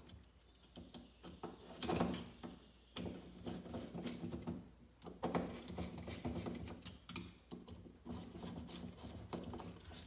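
Phillips screwdriver turning the small float-bowl screws into a Honda Foreman 450 carburetor: faint metal clicking and scraping of the driver tip in the screw heads, in several short runs with brief pauses between screws.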